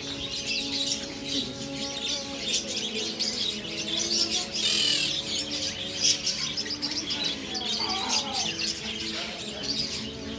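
Many caged small birds, budgerigars among them, chirping and twittering at once in a continuous dense chatter, with a louder flurry about halfway through.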